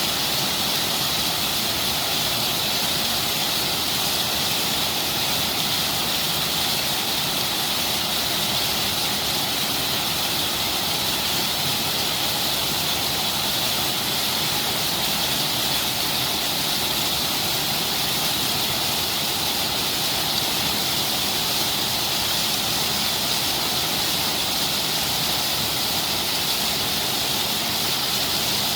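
Steady rushing water, an even hiss with no breaks.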